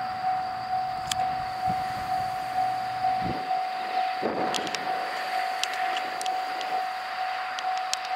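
Railway level-crossing warning bell ringing steadily, a single repeated electronic tone a little over two strokes a second, signalling an approaching train. From about halfway the approaching train adds a rising rumble and scattered clicks.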